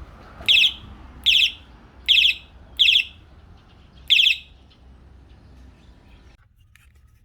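Electronic horn of a combined bicycle torch and power bank, pressed five times: each press gives a short, high, warbling chirp-beep.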